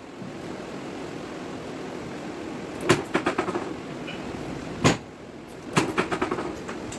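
Chiropractic drop-table sections snapping down under adjustment thrusts: three sharp clacks about three, five and six seconds in, the first and last followed by a quick rattle of smaller clicks.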